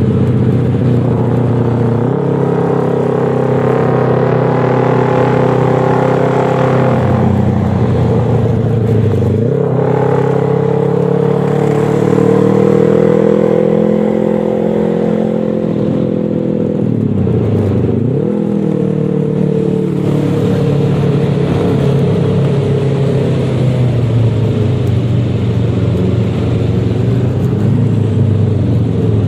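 Yamaha XMAX 300 scooter's single-cylinder engine running while riding, its pitch steady at first, then easing off and picking up again about a third of the way in and once more past the middle as the throttle is closed and reopened.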